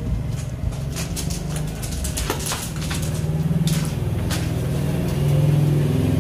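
A steady low rumble or hum whose pitch shifts about five seconds in, with scattered light clicks and knocks over it.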